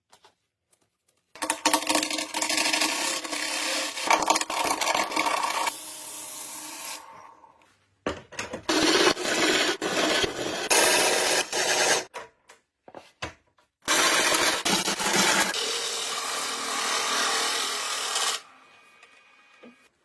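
A tool scraping and cutting wood in three long passes of several seconds each, with short pauses between them.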